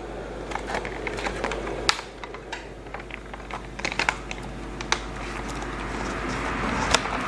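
Irregular plastic clicks and taps of a laptop being handled, like keys being pressed, with a hiss that grows louder in the second half.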